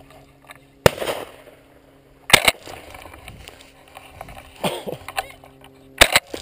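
A shotgun shot about a second in, loud and sharp with a short ringing decay, followed by three more sharp cracks over the next five seconds, two of them doubled.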